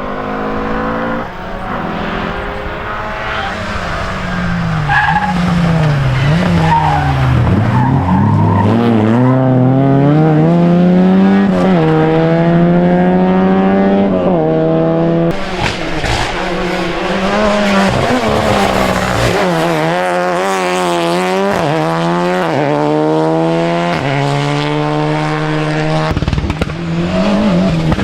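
Rally car engines revved hard on a special stage: the pitch falls off and climbs again, then rises in repeated runs, each cut short by a quick drop at a gear change.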